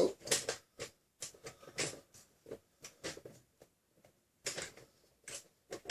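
Nerf Rival foam rounds being pushed one by one into the Jupiter XIX-1000 blaster's magazine: a run of short, irregular plastic clicks and taps.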